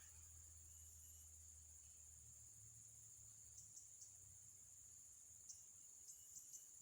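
Insects (crickets or cicadas) making a faint, steady, high-pitched drone, with a few faint short ticks in the second half.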